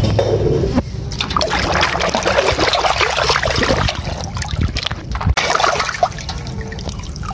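Muddy water splashing and streaming off a small plastic toy truck as it is dipped into a basin and lifted out.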